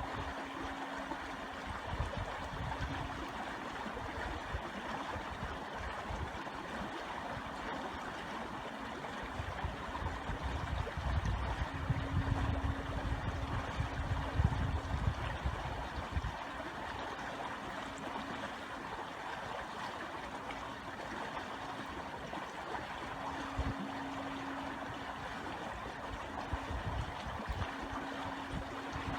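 Stream water flowing and gurgling steadily over stones, with an irregular low rumble underneath that comes and goes.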